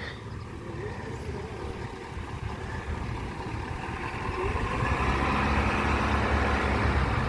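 A motor vehicle's engine running steadily, growing louder over the last few seconds.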